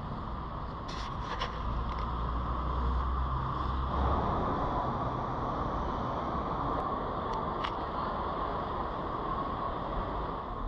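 Steady urban background noise of a busy pedestrian shopping area, with a low rumble for the first few seconds and a few faint clicks.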